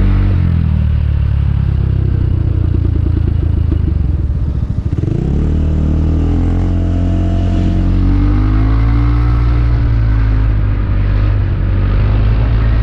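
Motor scooter engine on the move: it drops to a low rattling rumble just after the start, picks up sharply about five seconds in, then runs steadily with a gentle rise in pitch.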